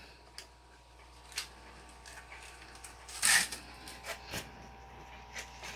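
Quiet handling noises: a few light clicks and rustles, with one brief louder rustle about three seconds in.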